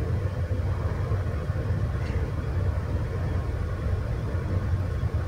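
Steady low rumble and hum of shipboard machinery, with a faint steady tone above it.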